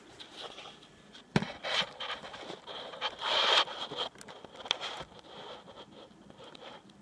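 Handling noise from a phone being propped up as a camera on a kitchen counter: a sharp knock about a second and a half in, then scraping and rustling, loudest around the middle, with a few small clicks after.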